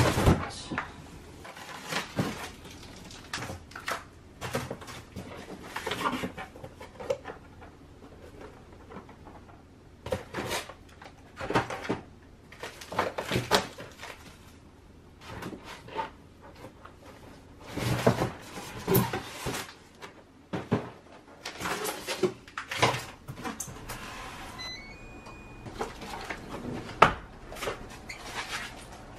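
Packaged food being lifted out of a styrofoam box: irregular bursts of foam scraping and knocking, with plastic packaging rustling.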